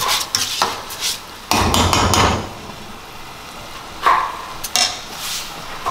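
A metal spoon stirs and scrapes rice in a large metal frying pan on the stove. About four seconds in, the spoon knocks sharply against the pan twice.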